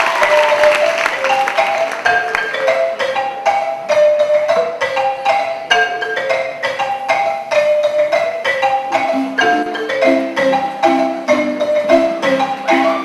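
Mallet-percussion music: a melody of quick struck notes, with a lower part joining about nine seconds in. Applause dies away over the first two seconds.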